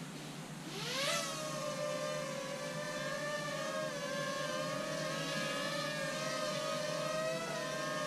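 DJI Tello quadcopter taking off: its four motors and propellers spin up with a rising whine about a second in, then hold a steady, slightly wavering whine as it hovers.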